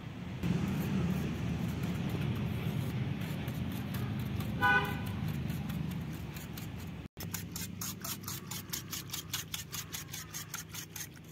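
A wire whisk beating curd in a clay bowl, in quick regular strokes about four a second during the second half. Before that, a low rumble of passing traffic with one short car-horn toot about halfway through.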